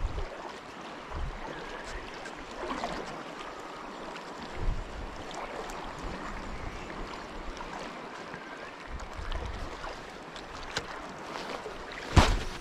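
Shallow sea water sloshing and lapping around a wading angler, with irregular bursts of wind on the microphone. Near the end comes one sharp swish as the spinning rod is swung to cast.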